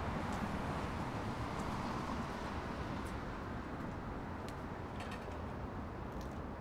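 Steady low rumbling ambient noise with a few faint clicks, slowly fading.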